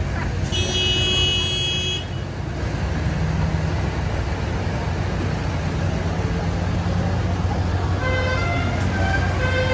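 Diesel engines of a slow procession of decorated tractors and a pickup running past, with a vehicle horn sounding once for about a second and a half, starting about half a second in. Near the end a tune of short musical notes starts up.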